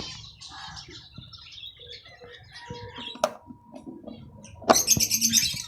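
Small cage birds (budgerigars and finches) chirping, with scattered calls, a sharp click about halfway, and a loud run of quick, evenly repeated high chirps near the end.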